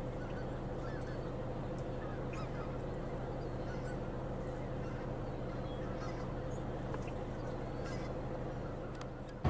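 Distant geese honking, a steady chorus with scattered fainter calls over a low steady hum.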